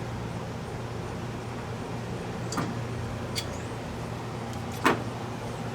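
A steady low hum, with a few sharp tool clicks on metal and one louder knock near the end, as an engine motor mount is worked loose.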